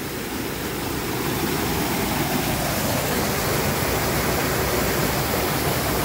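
Creek water rushing through a narrow gap between boulders, a steady splashing rush that grows louder over the first second or two and then holds even.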